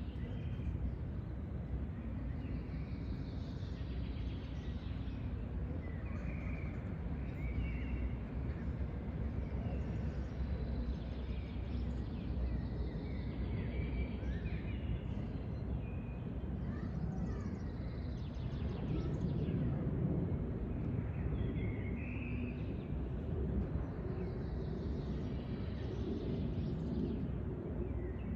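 Outdoor ambience: a steady low rumble of background noise with scattered short bird calls and chirps.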